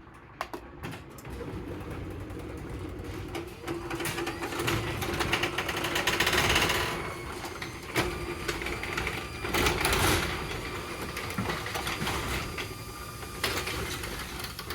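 Wall-mounted garage door opener running as the door travels: a steady motor whirr with a few sharp clicks, swelling louder around the middle.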